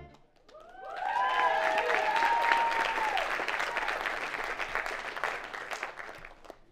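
Cinema audience applauding, with a few whoops early on; the clapping swells about half a second in and dies away near the end.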